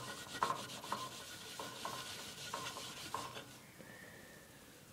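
A rag damp with brake cleaner rubbing and squeaking against the bare metal of a Briggs & Stratton 3.5 hp flathead engine's cylinder deck, scrubbing off carbon. It goes in short strokes, two to three a second, which stop about two-thirds of the way through.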